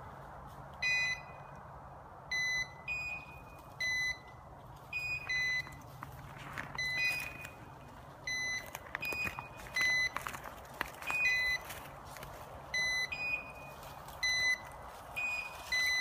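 Two electronic dog beeper collars beeping in turn, each short high beep at its own pitch, each collar repeating about every second and a half. This steady beeping is the point-mode signal of bird dogs standing still on point. A few faint twig snaps and rustles in the brush come in the middle.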